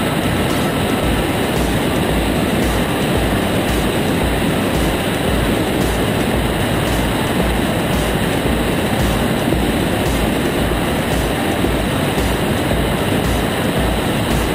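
Engine and propeller of an Aeroprakt A22 Foxbat light aircraft running steadily in flight, heard from a wing-mounted camera, under loud wind rush with uneven low buffeting on the microphone.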